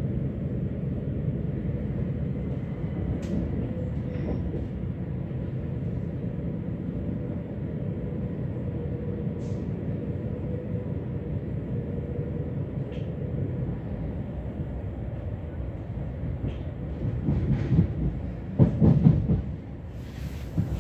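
Electric passenger train heard from inside the carriage while it runs along the track: a steady low rumble with a faint steady whine. Near the end come a few louder knocks and a clatter.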